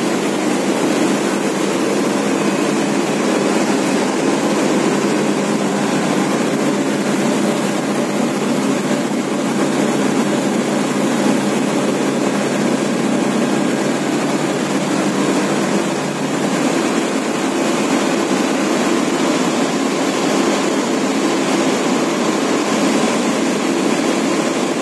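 Steady, loud drone of industrial waste-handling machinery and air ducting running, dipping slightly about sixteen seconds in.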